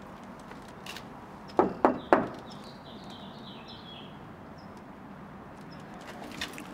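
Three quick, sharp knocks about a quarter second apart, the loudest sounds here, followed by a bird twittering a short run of falling chirps over quiet outdoor background.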